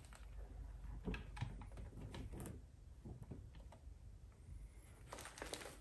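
Faint, scattered small clicks and light knocks of a computer monitor being handled and swivelled on its stand.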